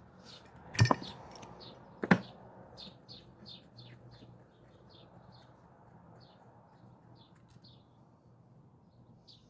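Two sharp knocks about a second apart as a small part is worked out of the assembly, followed by a quick run of short, high chirps, about three a second, that fade away.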